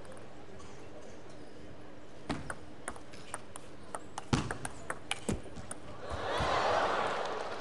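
Table tennis rally: the celluloid ball clicking sharply off rackets and table in quick succession. About six seconds in, the crowd breaks into applause as the point is won.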